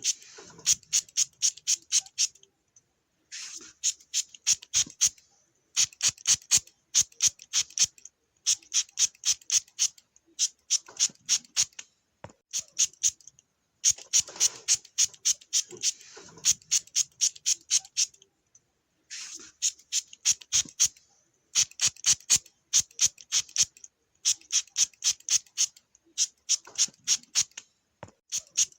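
Spray bottle squirted over and over: short hissing spurts in quick runs of about five or six a second, with brief pauses between the runs.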